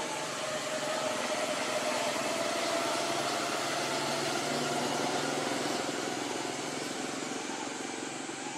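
A steady engine hum with a constant hiss, unchanging throughout.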